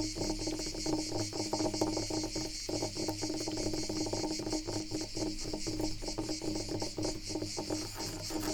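Wood being scratched, a dense run of fast, fine scraping strokes that goes on without a break, over a steady high hiss.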